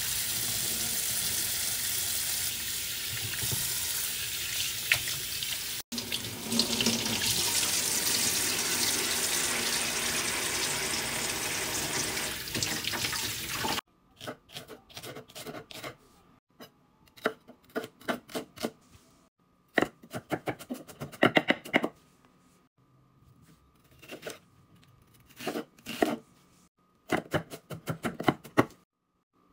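Kitchen faucet running into a stainless steel bowl in a sink as shellfish is rinsed by hand, a steady splashing that stops suddenly about halfway. Then a knife chopping celery and onion on a wooden cutting board, in quick runs of sharp taps with pauses between them.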